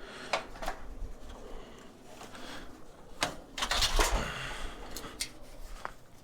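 Hard objects being handled: scattered sharp clicks and knocks, with a busier, louder cluster of knocks around the middle.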